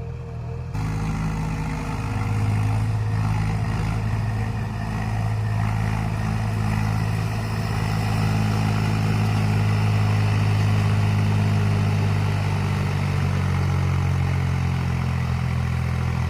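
Heavy diesel engine running hard under load, straining to climb a slope that it fails to make because it is overloaded. It comes up about a second in, grows louder a second later, then holds a steady laboured note.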